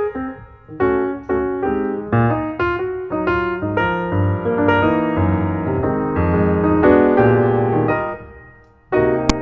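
Background piano music with a series of struck notes and chords. It fades down about eight to nine seconds in, then starts again with a short click just before the end.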